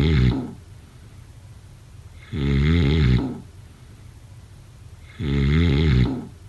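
A sleeper snoring in a steady rhythm, one rough snore about every three seconds, each lasting about a second. The first snore is ending as the sound begins, and two full snores follow.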